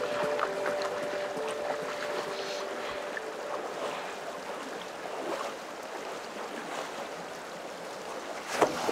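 Splashing of feet wading quickly through shallow river water, with the river's flowing water underneath. Background music fades out in the first few seconds.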